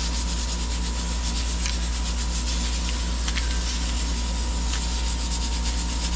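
A steady background hum, with a low pulsing throb and a thin steady whine over it. Three faint soft clicks come through about one and a half, three and a quarter and four and three-quarter seconds in.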